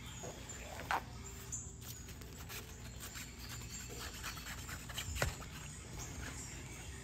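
A cat batting plush toys inside a fabric play tunnel: irregular rustling and light clicks, with a sharper click about one second in and another about five seconds in.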